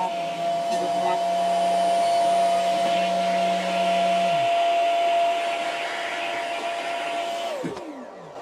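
Spindle motor of a Colinbus CNC profiler running with a steady whine over a rushing hiss. About seven and a half seconds in, the whine slides down in pitch as the spindle is switched off and winds down.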